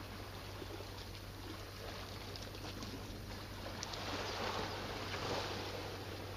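Small waves washing against a rocky shore: a soft, steady wash that swells about four seconds in, with a few faint ticks and a steady low hum underneath.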